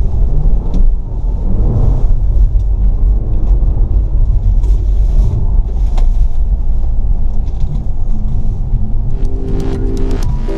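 Mercedes CLA 250 4Matic driving through snow: a heavy, steady low rumble with scattered short knocks. Electronic music comes in about a second before the end.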